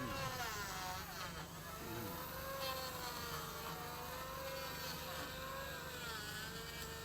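A small motor running with a buzzing tone whose pitch wavers slowly up and down, with a couple of brief falling glides in the first two seconds.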